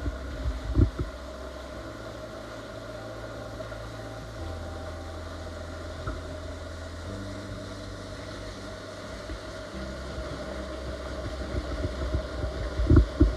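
Background music: sustained low notes that change every two to three seconds under steady higher tones.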